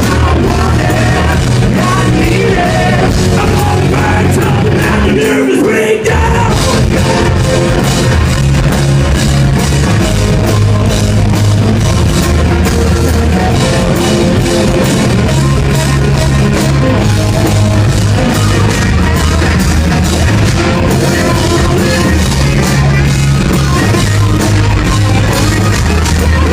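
Hard rock band playing live at full volume, with a short break in the music about six seconds in before it crashes back in.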